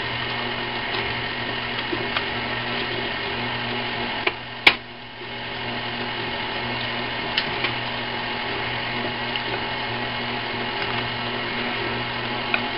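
Electric stand mixer running steadily, beating creamed butter and sugar as eggs are added one at a time. One sharp tap a little over four seconds in and a few fainter clicks.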